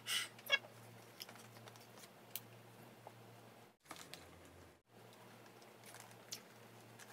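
Faint sounds of someone eating fast food at a table: scattered small clicks and light rustles of paper packaging over a low steady hum. There is a brief flurry of small mouth and handling sounds at the very start, and the sound drops out briefly about four seconds in.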